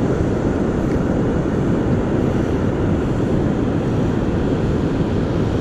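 Steady low rumble of wind buffeting the microphone, with the wash of ocean surf behind it.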